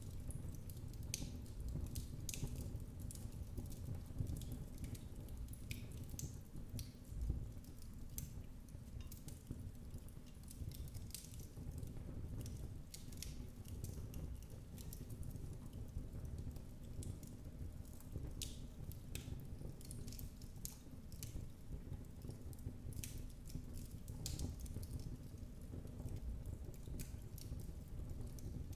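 Wood fire crackling in a fireplace: irregular sharp pops and snaps over a low steady rumble of the flames, one louder pop about seven seconds in.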